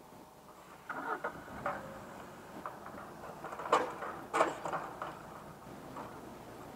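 Irregular knocks and clanks of logs being unloaded from a timber truck, with two sharp loud strikes close together about four seconds in, over a faint steady hum.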